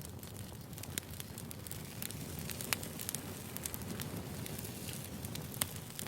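Wood fire burning: a steady low rustle of flames with scattered sharp crackles and a few louder pops.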